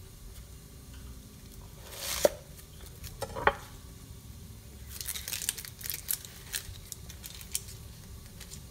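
Onion being cut and split apart on a wooden cutting board: two sharp crunches about two and three and a half seconds in, then a run of crisp crackles and rustles as the onion pieces are handled.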